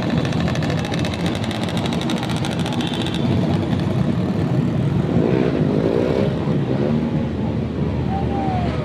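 Vehicle engine running through its exhaust, with a rapid, even train of exhaust pulses for the first three seconds that then fades into a steadier rumble.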